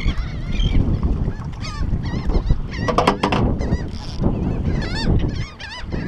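Seabirds calling around the boat: many short, repeated, rising-and-falling calls, some overlapping, over a steady low rumble of wind and water noise.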